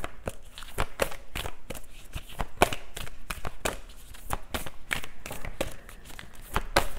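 A deck of oracle cards being shuffled and handled by hand: a quick, irregular run of soft taps and slaps as the cards strike and slide against each other.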